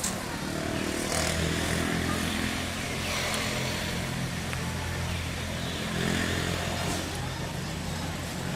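A vehicle engine running steadily, a low hum that grows louder about a second in and then holds.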